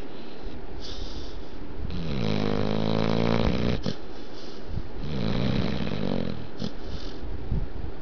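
Pit bull snoring in its sleep: two long snores with a pitched rattle, about two seconds in and again about five seconds in, with hissing breaths between them.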